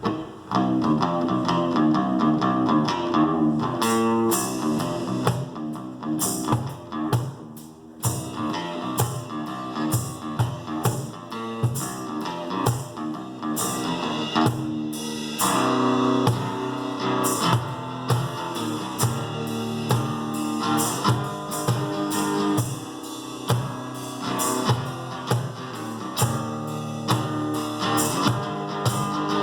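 Live instrumental rock: a guitar picking a riff, joined about six seconds in by drums keeping a steady beat.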